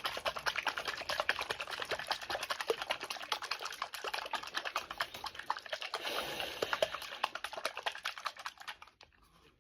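A bottle of rhode glazing milk being shaken hard: a fast, uneven run of clicks that stops about nine seconds in.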